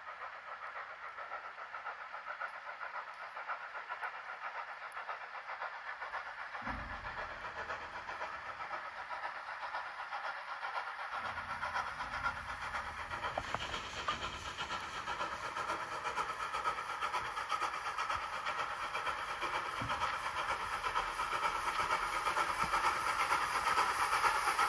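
A steam locomotive hauling passenger coaches approaches and grows steadily louder, the noise of its steam and wheels on the rails building as it nears.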